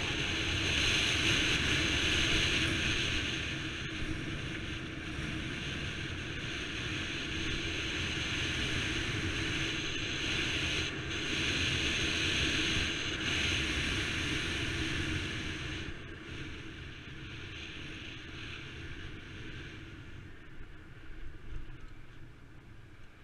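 Wind rushing over an action camera's microphone and tyre hum as a mountain bike rolls fast down an asphalt road. It eases off about two-thirds of the way through as the bike slows into a bend.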